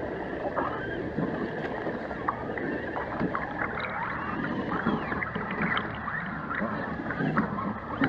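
Shallow creek water running and gurgling right at the camera, a steady rush with many small bubbling clicks and chirps.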